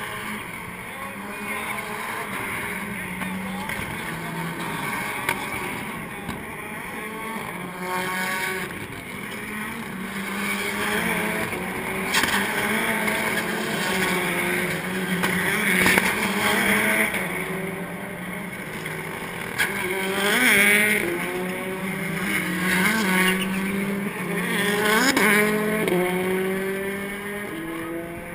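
Rallycross race car engines running hard on the track, their pitch climbing and dropping again and again with acceleration and gear changes. The engines grow loudest about halfway through and twice more in the last third.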